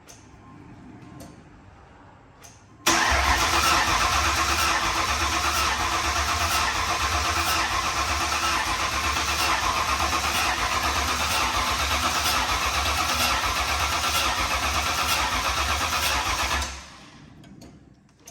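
Starter motor cranking a freshly built Ford 5.0 V8 steadily for about fourteen seconds without the engine catching. It starts suddenly about three seconds in and stops near the end. The engine will not fire because it is getting no spark.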